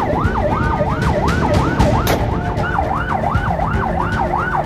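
Patrol boat's siren wailing rapidly up and down, about three sweeps a second, over a low rumble of engine and wind. About two seconds in come a few sharp cracks: warning shots fired into the air.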